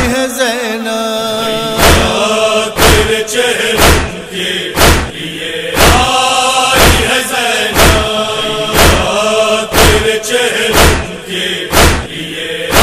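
Male chorus chanting a nauha refrain in unison, over sharp, even slaps about once a second in the rhythm of matam (chest-beating).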